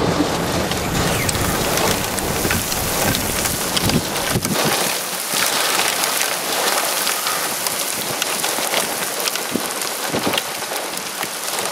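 Heavy rain pelting the vehicle in the strong rear-flank downdraft of a tornadic supercell, a dense hiss with many drops tapping. A low rumble underneath fades out about five seconds in.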